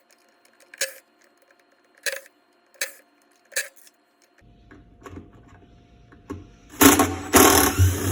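Screws being taken out of a Whirlpool washing machine's drive hub: a few sharp metal clicks, then a motor running in two short, louder bursts near the end.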